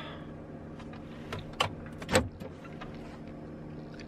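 Supercharged pickup truck's engine idling steadily, heard inside the cab, with a few sharp clicks and knocks about one and a half to two seconds in; the last knock is the loudest.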